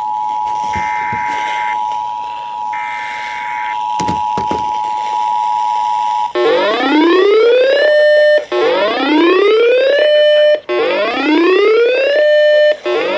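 EAS two-tone attention signal sounding steadily, with three short bursts of warbling SAME digital data over it, ending about six seconds in. It is followed by a repeating electronic alert tone that rises in pitch, holds briefly and cuts off, about every two seconds, four times.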